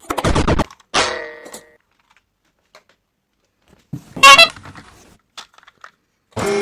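A few short horn-like toots, about four, with silence between them; the loudest comes a little past the middle.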